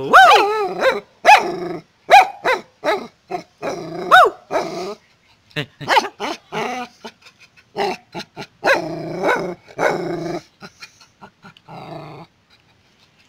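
Small black dog barking in a rapid string of short barks and yips, several of them arching up and down in pitch, with a brief lull around the middle.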